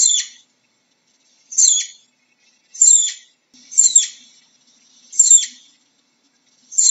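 Flying squirrel calling: a series of six short, high-pitched chirps, one roughly every second and a half, each sliding downward in pitch.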